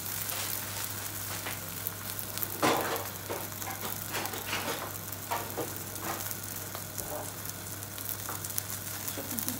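Stuffed msemen flatbread frying in a hot pan: a steady sizzle with scattered pops and crackles, one louder crackle about two and a half seconds in, over a faint steady low hum.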